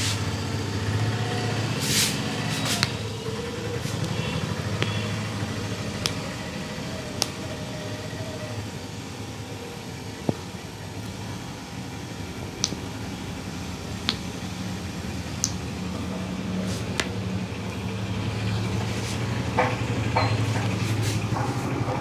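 Steady low hum of street traffic, with a dozen or so short sharp clicks and taps scattered through it.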